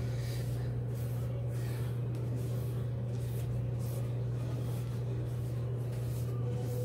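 A steady low hum with faint rustling of small craft items being handled.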